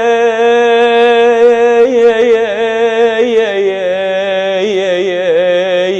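A man's unaccompanied chanting voice in Iraqi Husseini lament style, drawing out one vowel. He holds a steady note for about two seconds, then breaks into wavering ornamented turns that settle a little lower in pitch.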